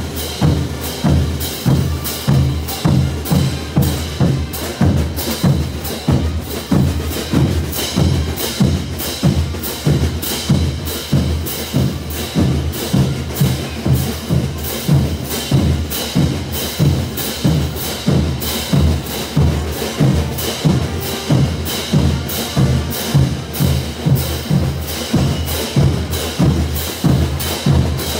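Bolivian brass band playing on the march, its rows of crash cymbals struck together on the beat about twice a second over the bass drum.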